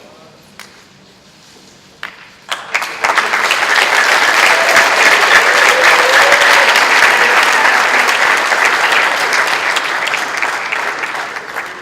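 Audience applauding. A few scattered claps come about two seconds in, then the applause quickly builds to a steady, loud clapping that tapers off near the end.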